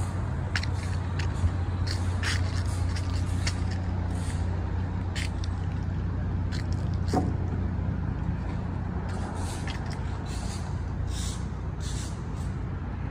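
Road traffic on a busy multi-lane street: a steady low rumble of passing cars' engines and tyres. Scattered light clicks and scuffs are heard over it.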